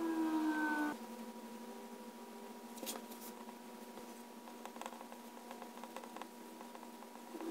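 Extra-fine fountain pen nib scratching on smooth dot-grid paper as it writes, a patter of small ticks from about halfway in. Earlier, a brief rub on the paper a few seconds in smears the fresh dry-time marks. The loudest sound is a tone with several pitches sliding slowly down, which stops suddenly about a second in.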